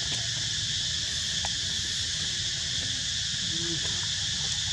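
Insect chorus in the surrounding vegetation: a steady, high-pitched drone that never lets up, over a low rumble.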